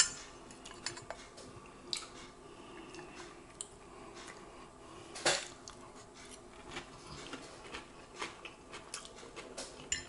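Cutlery clinking and scraping on a plate during eating: scattered light clicks, with one louder clink about five seconds in.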